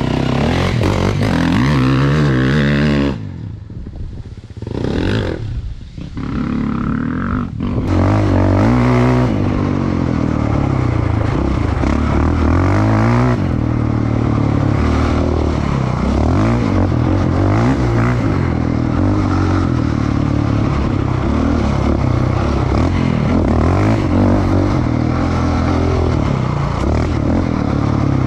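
Quad bike engine running hard as it is ridden over a dirt track, its pitch rising and falling with the throttle. About three seconds in it drops quieter and uneven for a few seconds, then comes back up and keeps running under load.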